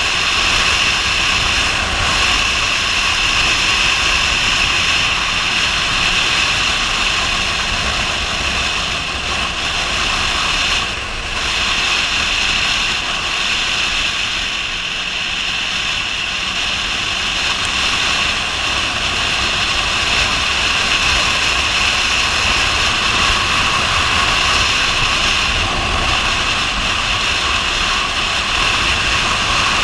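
Yamaha MT-09 motorcycle at road speed: steady wind rushing over the on-board camera with the bike's three-cylinder engine running underneath. The noise dips briefly about a third of the way in.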